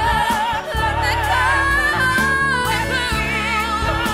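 Musical theatre song: a solo voice singing with strong vibrato over band accompaniment with sustained bass notes that change every second or so.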